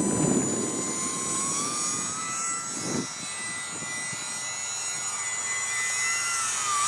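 High whine of ultra-micro electric RC planes' motors and propellers; the tone climbs in pitch about a second in as the throttle comes up for takeoff, then wavers up and down as the planes fly. Brief low rushing noise at the start and again about three seconds in.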